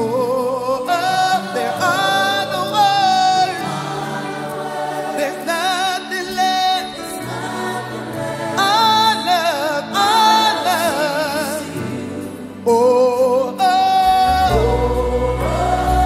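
Live gospel worship song: a woman leads with wavering, sustained sung lines, backed by a group of singers and a band. A deep bass comes in near the end.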